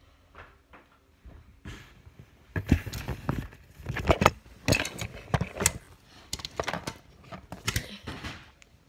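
Handling noise from a phone being held and moved: irregular scrapes, rubbing and small knocks against the microphone. They are sparse at first and turn busier about two and a half seconds in.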